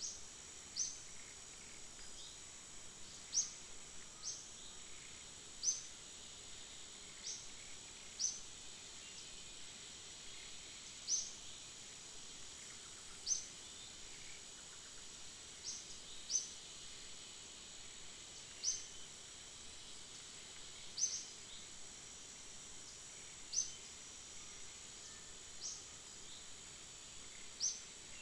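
Forest ambience: a steady high insect drone, with a short, high, upward-sweeping chirp repeated every one to two and a half seconds.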